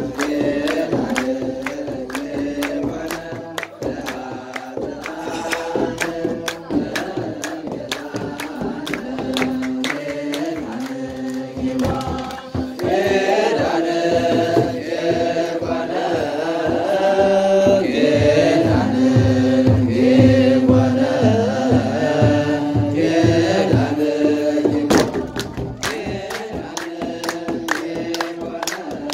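Ethiopian Orthodox mezmur chanted by a group of men, with hand clapping and a steady beat. The singing and a low drum beat grow louder about halfway through, then ease back near the end.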